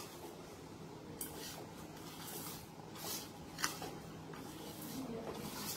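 A hand rubbing and tossing dry ground spice masala for mango pickle in a stainless steel bowl: soft rustling of the powder, with a few brief scrapes of fingers against the metal.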